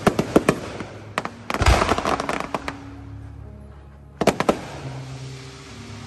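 Aerial fireworks shells bursting: a quick run of sharp bangs, then a deep boom followed by about a second of dense crackling, and another short run of sharp bangs about four seconds in.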